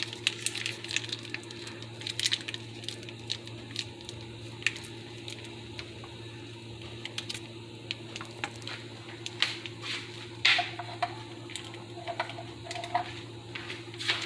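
Thick cheese sauce squished out of a foil pouch into a pan of sauce, with the foil crinkling and scattered small irregular clicks, over a steady low hum.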